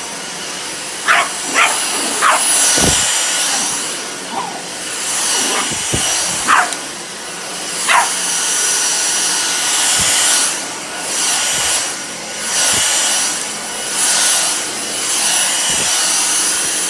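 Stick vacuum running on carpet with a steady high whine, swelling and fading as it is pushed back and forth. A Pomeranian barks at it in sharp high yips, about six times over the first eight seconds.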